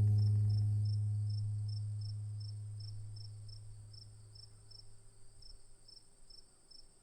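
A low musical note struck just before, dying away over about five seconds, over crickets chirping about three times a second against a steady high insect trill.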